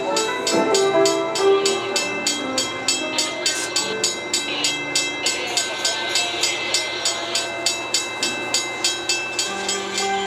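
Christmas music with a steady jingle-bell beat, about four strikes a second, playing over the sound of a train at the station.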